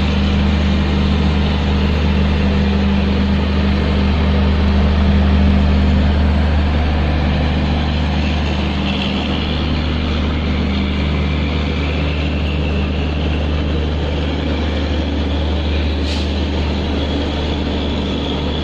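WCAM-3 electric locomotive running with its blower motors on: a steady low hum with several constant tones.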